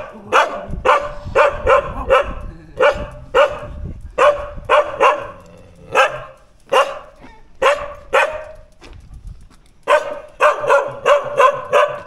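Dogs barking fiercely at a cyclist, short sharp barks several per second, with a brief lull about nine seconds in. The smaller dog is trying to bite.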